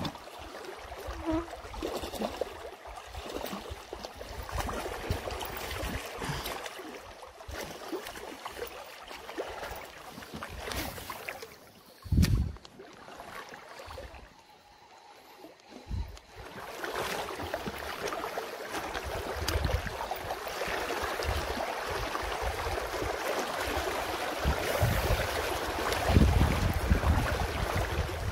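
Shallow river water rushing steadily over a stony riffle, with wind rumbling on the microphone. A single thump about twelve seconds in, then a few quieter seconds before the water sound comes back louder.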